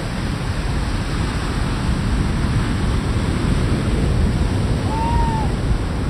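Ocean surf breaking on a sandy beach, a loud, steady wash of waves with a deep rumble. About five seconds in, a short whistle-like note rises and falls.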